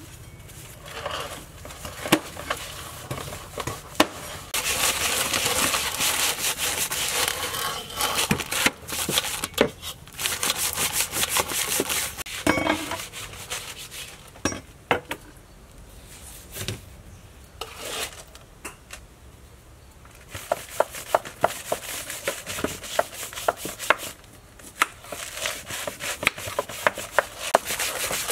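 Hands scrubbing coarse salt over the slimy skin of a large snakehead fish in a steel bowl to clean it: a rough scraping rasp, loudest for a few seconds early on. Mixed with it are many sharp clicks and knocks from a knife cutting and from the bowl.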